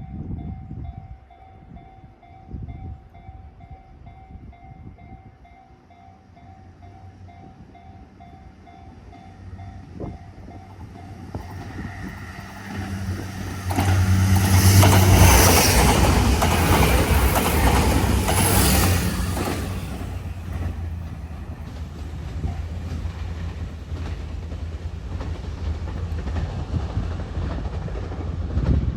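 Japanese level-crossing warning bell ringing in a rapid repeating pattern for the first third, then a train approaching and passing loudly through the middle, leaving a lower steady rumble.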